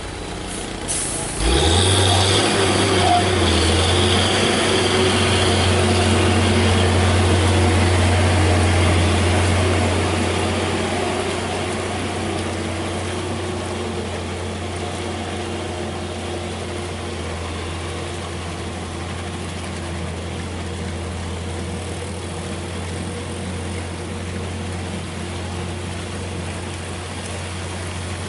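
Heavy truck's diesel engine running loud and low under load, as when pulling up a steep climb. It cuts in suddenly about a second and a half in, with a faint high whine over it at first, and eases off after about ten seconds to a quieter steady drone.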